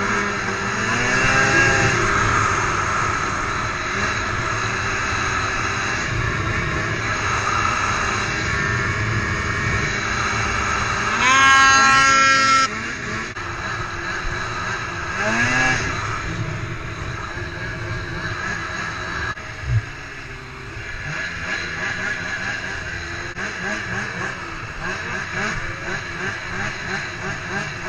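Polaris IQR 600 snowmobile's two-stroke engine running, its pitch rising with throttle several times, highest and loudest about eleven seconds in. A short thump comes near twenty seconds.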